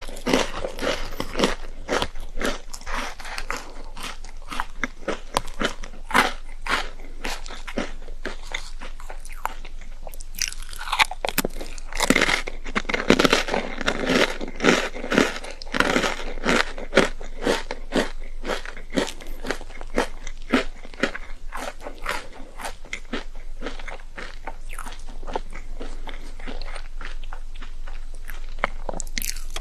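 Close-up eating sounds: someone biting into and chewing crunchy food, a dense run of sharp crunches that is loudest about halfway through.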